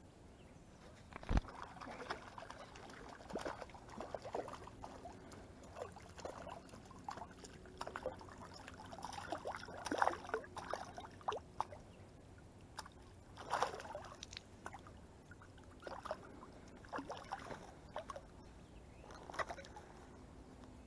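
Irregular splashing and sloshing of shallow lake water around a wader's legs, with a fish splashing at the surface near the hand, loudest around the middle. A single sharp knock about a second in.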